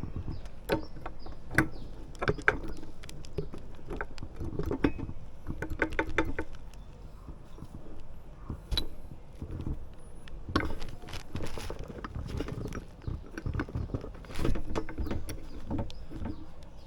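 Hand tools and metal motorcycle brake parts being handled: irregular clicks, taps and knocks, with a quick run of evenly spaced clicks about six seconds in.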